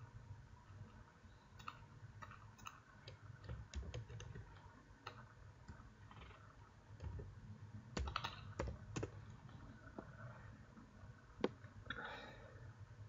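Faint, scattered clicks of computer keyboard keys and a mouse, with a few sharper keystrokes around the middle and near the end, over a low steady hum.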